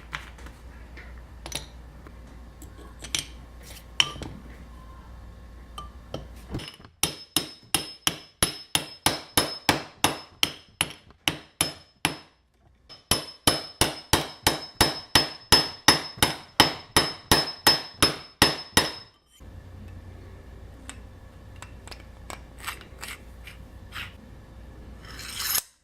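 A hand tool working metal in a fast, even rhythm, about four sharp strokes a second, in two runs of about five and six seconds with a short break between. Before and after come only scattered light clicks and knocks.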